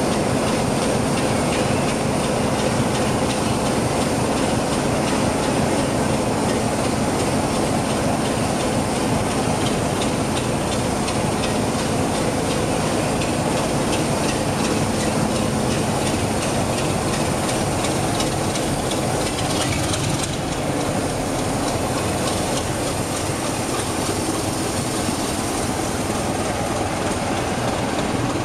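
BR Sulzer Type 2 diesel locomotive with its engine running steadily as it moves slowly along the platform and passes close by.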